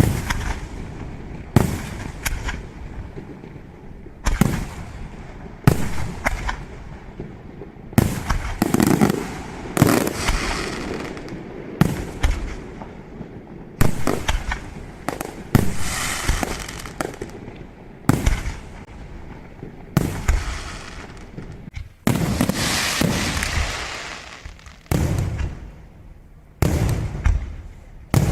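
Fireworks display: aerial shells bursting one after another with sharp bangs every second or two, each trailing off, and stretches of dense crackling from crackle effects.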